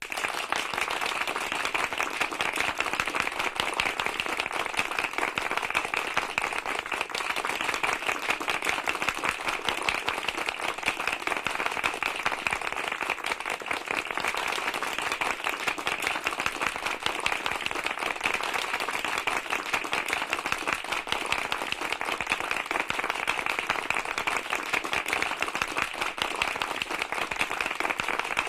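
Applause: dense, steady clapping from many hands, running on without a break or swell.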